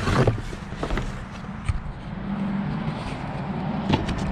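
Cardboard shipping box being opened and a boxed parts kit handled inside it: rustling of the flaps at the start and a few light knocks, the last two close together near the end. A steady low hum runs underneath from about a second and a half in.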